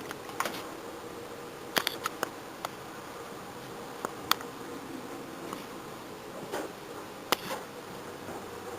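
A large flock of birds calling together in a steady chatter, with a few sharp, brief chirps standing out about two seconds in, near the middle and near the end.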